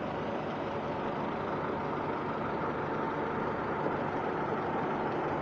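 A car engine running steadily, with no distinct knocks standing out.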